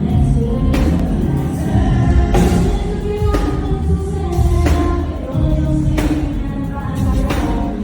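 Pop music with group vocals over a heavy bass and regular percussion hits.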